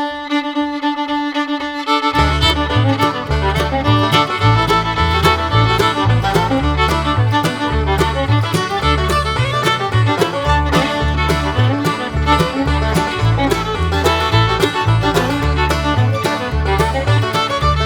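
Background instrumental music: one held note for about two seconds, then a bass line and a steady beat come in.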